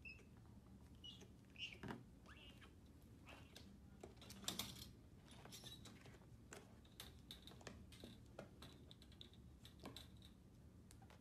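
Faint handling sounds: light clicks, taps and rustling as a baby bobcat is moved about on a fabric-covered cushion, with a few short high squeaks in the first two seconds and a brief louder clatter about four and a half seconds in.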